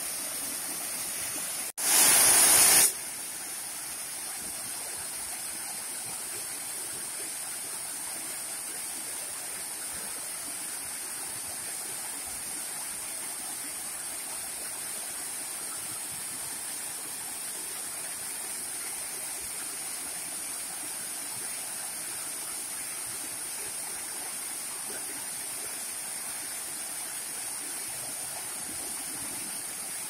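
Waterfall cascading over rocks: a steady rush of falling water. About two seconds in, the sound drops out for an instant and then comes back much louder for about a second before settling to its steady level.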